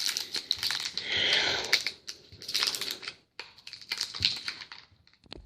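Trading cards and their packaging being handled: crinkling and rustling with a scatter of small clicks, loudest about a second in.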